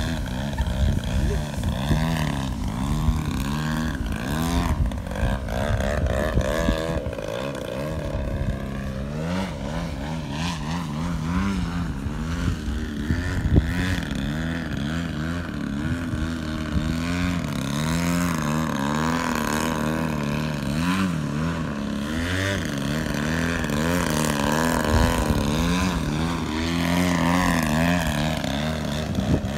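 Gasoline engine (GP-123) of a 103-inch-span RC aerobatic airplane in flight, its pitch rising and falling over and over as the throttle is worked through 3D manoeuvres and hovering.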